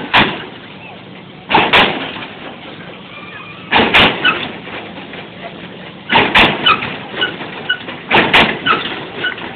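Lowrider Impala hopping on its hydraulic suspension: a loud double slam and clunk about every two seconds as the car bounces, with crowd voices in between.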